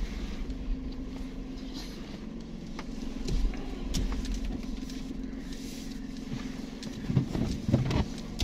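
Car cabin noise while driving: a steady low engine and road hum, with a few knocks and clicks near the end.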